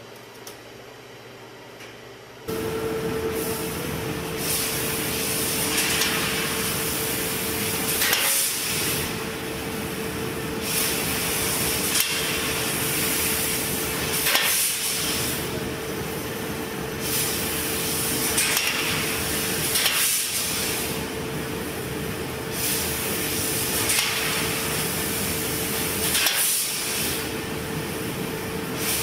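Knuth SM 1000 E CNC laser cutting machine piercing and cutting sheet metal: a steady machine hum with a constant tone, and hissing of the assist gas that swells every couple of seconds as the head pierces and cuts each hole. It starts about two seconds in, after a quieter stretch.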